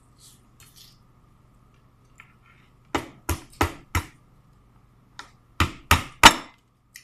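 Sharp knocks of a table knife striking a steamed blue crab and the table to crack the shell: four quick strikes about three seconds in, then four more about two seconds later, the last the loudest.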